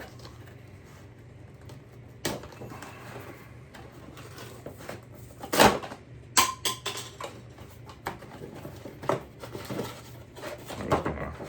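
Scattered clicks and knocks of something small being handled, with a low steady hum underneath. The sharpest knock comes about five and a half seconds in.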